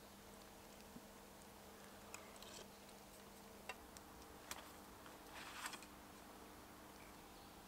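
Near-quiet with a few small clicks, then a short scrape of a steel knife being drawn from a leather belt sheath, a little past halfway.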